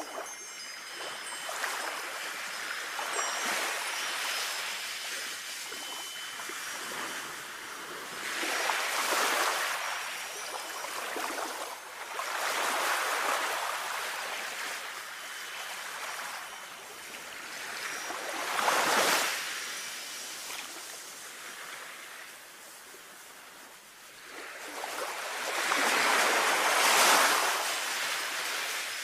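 Sea waves washing in and drawing back, the surf swelling and falling away about five times.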